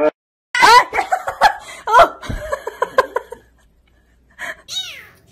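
A person laughing in a run of short bursts for about three seconds, then after a pause a short meow near the end.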